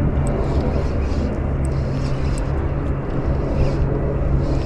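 A steady low engine drone with an even pitch that holds without change, with a few faint light ticks over it.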